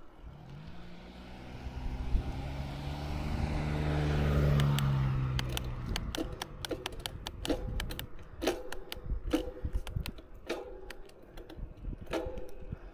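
A car passes close by: its engine and tyre noise swells to a peak about four seconds in, then fades as its pitch drops. After it has gone come scattered sharp clicks and rattles from the bicycle.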